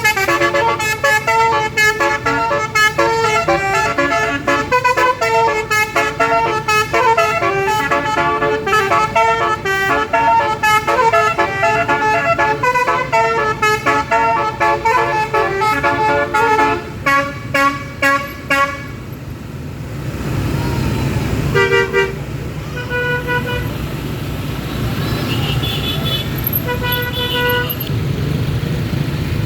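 A bus's telolet basuri horn, a multi-tone horn, playing a fast melody of quickly changing notes for about nineteen seconds over engine and road noise. It then stops, and a few short horn toots follow.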